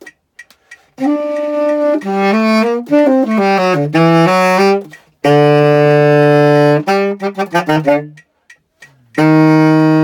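Tenor saxophone played solo. After a moment's silence comes a phrase of notes, then a long held low note, a quick run of short notes and a brief pause. Near the end a second long low note begins.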